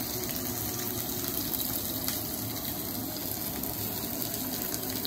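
Sliced vegetables sizzling steadily in hot oil in a skillet at the start of a stir-fry.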